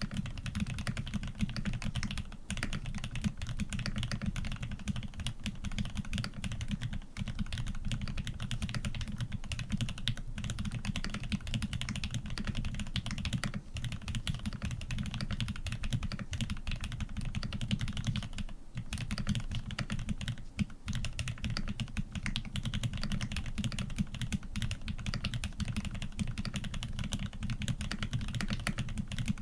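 Continuous fast typing on a custom mechanical keyboard with lubed Aquaking switches, PBT keycaps and a polycarbonate plate: a dense run of deep keystroke clacks, with only brief pauses.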